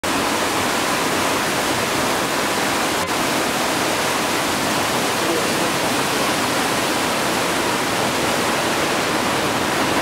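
Waterfall rushing steadily in a narrow sandstone slot canyon, a constant even hiss of falling water.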